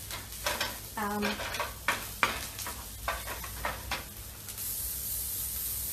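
Onions and chilli sizzling in a frying pan while being stirred, with irregular scraping strokes of the utensil against the pan. A steady, higher hiss comes in about four and a half seconds in.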